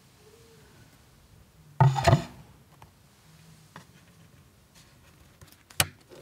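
Vinyl record and turntable being handled: a loud clunk with a short rattle about two seconds in as the record is laid on the platter, a few light clicks, then a sharp click near the end as a finger presses a control on the turntable.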